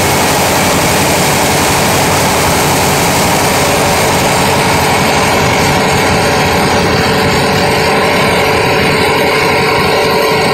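A river ferry's engine running steadily, loud and even, with a rush of noise over it.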